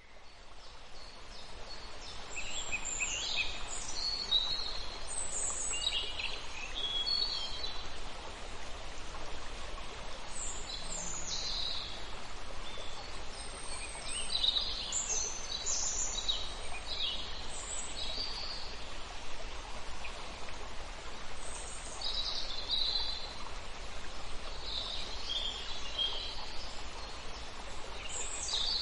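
Nature ambience: songbirds chirping and trilling in short, scattered calls over a steady rushing noise, fading in over the first couple of seconds.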